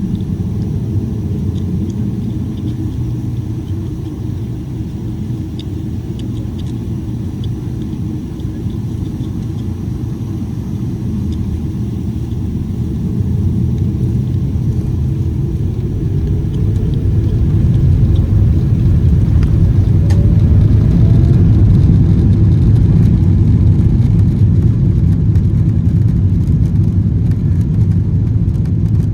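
Boeing 777-300ER's GE90 jet engines heard inside the passenger cabin as a steady low rumble; about halfway through a whine rises in pitch and the rumble grows louder as engine thrust is increased.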